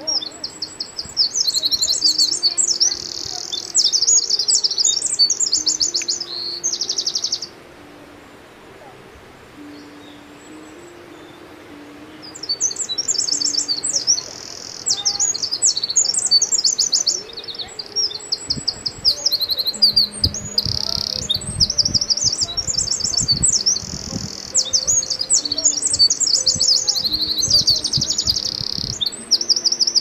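Eurasian wren singing: long, loud, fast runs of high trills and warbles. The first song lasts about seven seconds, and after a pause a second long stretch of song begins about twelve seconds in.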